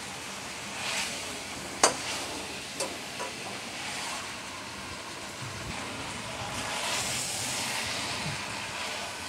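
Whole chicken frying in mustard oil in a metal pan, a steady sizzle. A metal utensil strikes the pan sharply about two seconds in, with two lighter knocks soon after, as the chicken is turned.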